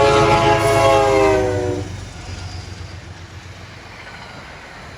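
Metro-North P32AC-DM diesel locomotive 219's multi-tone air horn blowing a long blast that cuts off a little under two seconds in, its chord sagging slightly in pitch as it passes. The low rumble of the passing train runs under it and carries on more quietly after the horn stops.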